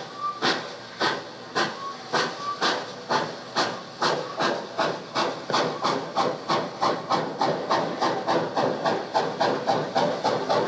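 Steam locomotive pulling away, a recorded sound effect played from cassette on a 1976 Sony TC-520CS: sharp exhaust chuffs over steady hiss, quickening from about two a second to about four a second as it gathers speed.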